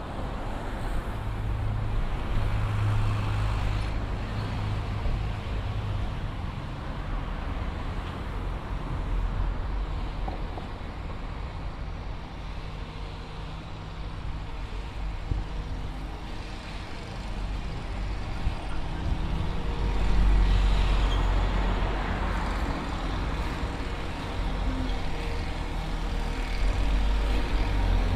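Road traffic on a town street: motor vehicles driving past, with a steady low hum in the first few seconds and the loudest vehicle passing about two-thirds of the way through.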